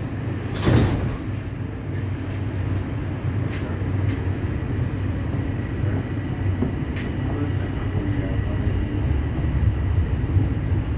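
TTC subway train running, heard from inside the car: a steady low rumble, with a brief clank about a second in.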